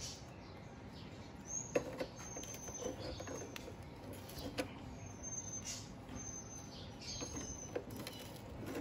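Small metal clicks and taps as pliers work at a bolt on a motorcycle's tail-light bracket, the sharpest about two seconds in. Short high bird chirps come several times throughout.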